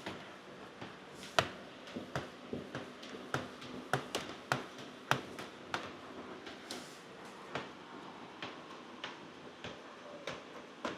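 Hand tools clicking and tapping against car window glass and trim during tint installation: irregular sharp clicks, up to about three a second, thinning out after about six seconds.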